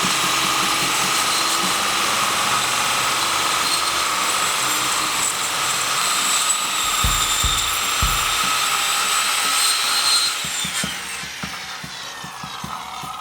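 Circular saw ripping a long cut down the edge of a wooden door. The motor runs steadily with a whine through most of the cut, then is let go about ten seconds in and spins down, falling in pitch.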